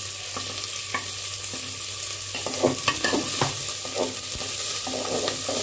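Onions and a bay leaf sizzling steadily in hot oil in an aluminium pot, while a steel slotted ladle stirs them, scraping and clinking against the pot in short bursts.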